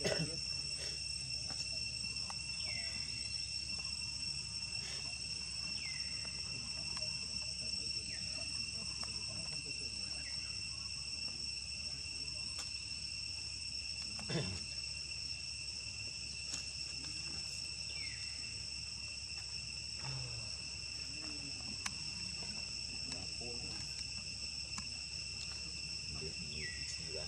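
Steady insect chorus, a continuous high-pitched drone of several shrill tones, with short falling chirps every few seconds and one sharp knock about halfway through.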